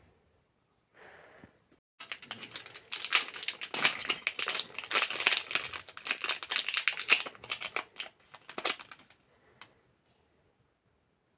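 Packaging crinkling and rustling as it is handled and opened. It starts about two seconds in and runs for about seven seconds as a dense, crackly run of sounds.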